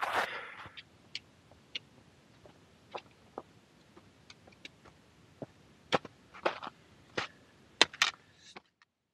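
Sharp, scattered clicks of trekking-pole tips and footsteps striking rock and crusted snow, sparse at first and growing louder and more frequent over the last few seconds.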